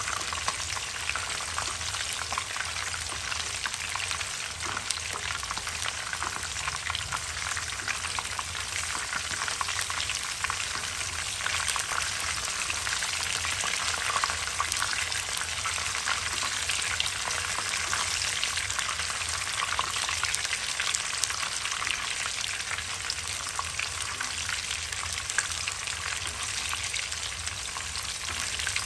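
A whole silver barb shallow-frying in hot oil in a nonstick wok. There is a steady sizzle with constant fine crackling pops, as hot oil is ladled over the fish.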